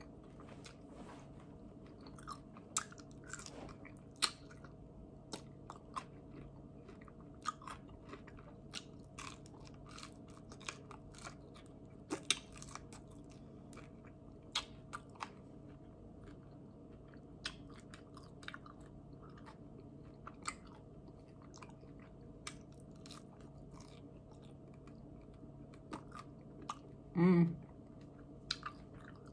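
Close-miked chewing and biting on barbecue chicken wings: many short, wet mouth clicks and smacks scattered throughout. There is a brief hum of the voice about 27 seconds in.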